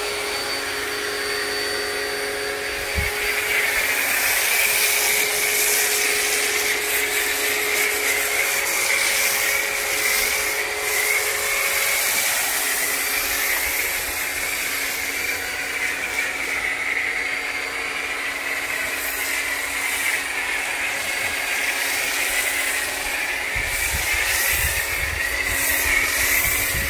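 Greenworks electric pressure washer running steadily, its motor and pump giving a steady whine under the hiss of a foam cannon spraying thick snow foam.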